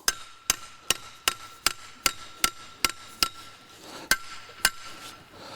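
Steel screw pile struck again and again with a pry bar, each blow giving a short metallic ring that carries over between strikes. The blows settle the sand poured into the pile. About nine even blows come a little over two a second, then after a short pause two more.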